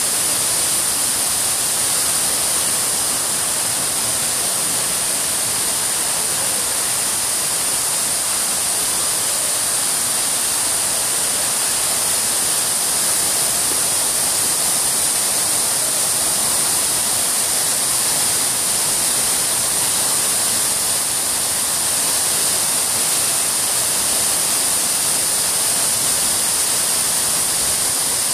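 Fountain water jets and a water curtain pouring down a stone wall, splashing with a steady, even hiss.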